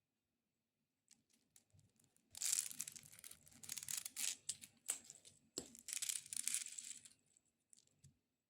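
Extra-long fingernails scratching fast and hard over a baby dragon toy: a few light taps, then about five seconds of dense, scratchy rasping broken by a couple of sharp clicks, then a few faint taps near the end.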